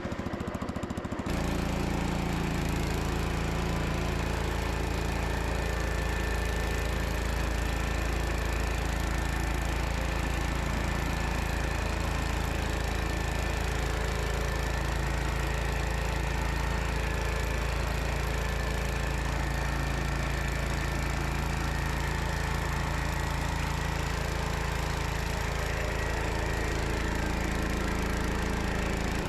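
Gravely C10 walk-behind tractor's Kohler engine running steadily under load, driving its dog eater snowblower attachment. The engine cuts in abruptly about a second in.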